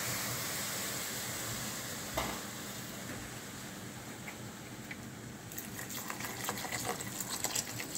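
Water poured from a plastic bottle onto fried oats and vegetables in a hot pot, a steady hiss with a run of short crackles in the last two or three seconds.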